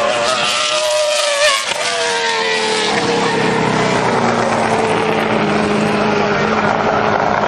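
NASCAR stock car's V8 engine running, its pitch falling over the first few seconds, then settling into a lower steady drone.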